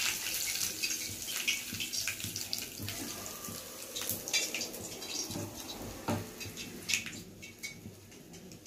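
Curry leaves and cumin seeds sizzling in hot oil in a small pan for a tempering, a steady hiss with scattered sharp crackles.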